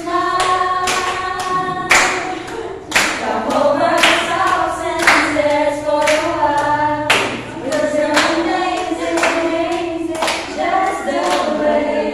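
A small group of women singing a song together without instruments, clapping their hands in time, about two claps a second.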